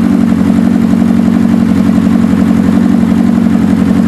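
Suzuki GS550's air-cooled inline-four idling steadily and evenly, running with a Colortune plug in one cylinder while its carburettor idle mixture is being set.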